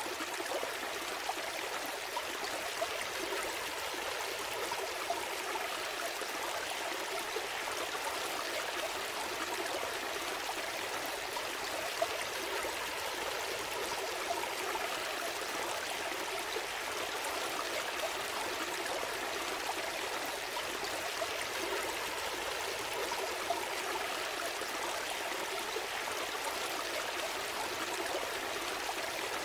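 Small stream flowing steadily over stones, a continuous babble and trickle with occasional brighter splashes.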